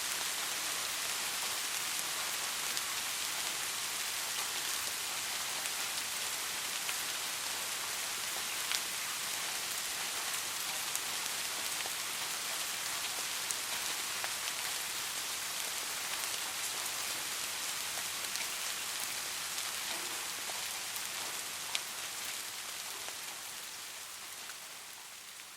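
Steady soft rain falling, a dense even hiss with scattered sharper drop ticks, fading out gradually over the last few seconds.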